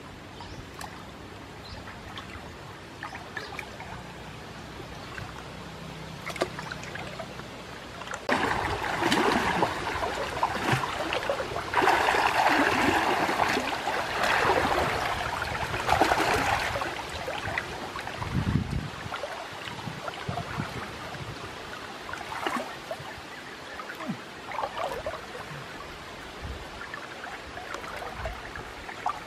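River water splashing and sloshing as a person swims and wades through it. The splashing grows loud for several seconds in the middle, then settles to scattered small splashes.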